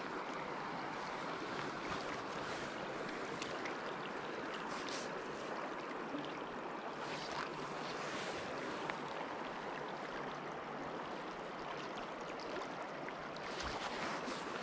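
Small, shallow stream running steadily over a rocky riffle: a continuous, even rush of water, with a few faint brief rustles.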